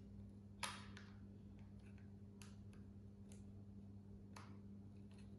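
Near silence over a steady low hum, with a handful of faint, short clicks from cardboard jigsaw puzzle pieces being handled, the clearest about half a second in.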